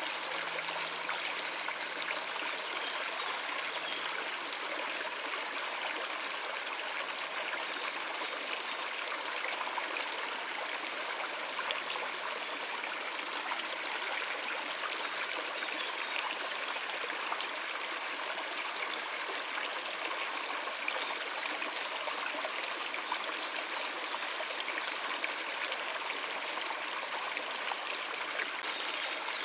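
Stream water running over rocks, a steady rushing and trickling. A few faint high chirps, likely small birds, come about two-thirds of the way through.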